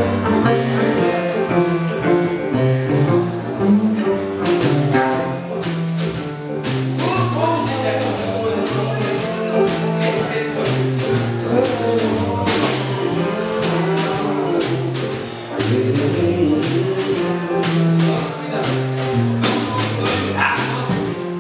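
Live jazz band playing an instrumental introduction: electric keyboard chords, electric guitar and a walking bass line, with the drum kit and cymbals coming in about four seconds in.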